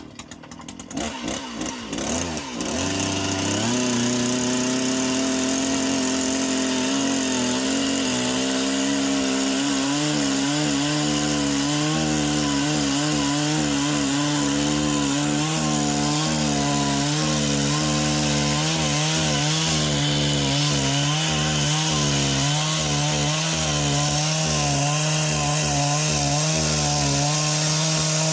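Two-stroke chainsaw starts unevenly, revs up to a steady high run about four seconds in, then from about nine seconds in its pitch wavers as it cuts, ripping a plank lengthwise down a standing tree trunk.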